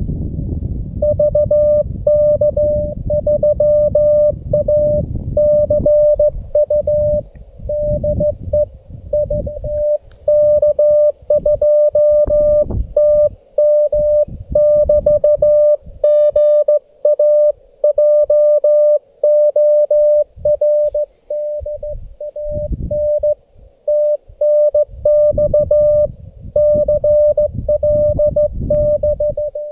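Morse code (CW) tone from a Xiegu G90 HF transceiver: one steady mid-pitched note keyed on and off in dots and dashes, starting about a second in and running as a continuous stream of characters. A low rumble sits underneath, heaviest in the first few seconds and coming back in patches.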